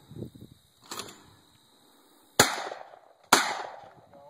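Two Benelli shotgun shots a little under a second apart, each with a short decaying echo, fired at a pair of clay pigeons. A softer crack comes about a second in, well before them.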